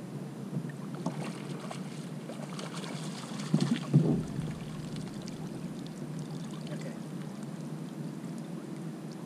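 A landing net goes into the water beside a kayak with a splash and a knock at about three and a half to four seconds in, while a hooked speckled trout is being landed. The rest is a steady hiss of wind on the microphone and water around the hull.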